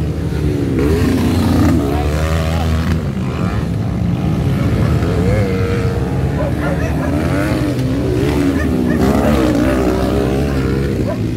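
Motocross dirt bike engines revving up and down repeatedly as the bikes accelerate and ease off around the track, over a steady low hum.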